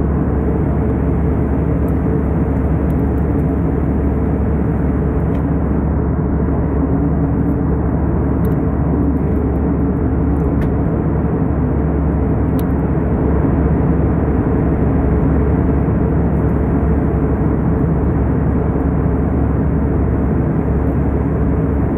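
Jet airliner cabin noise in flight: a steady, deep rush of engine and airflow noise from a window seat, even throughout.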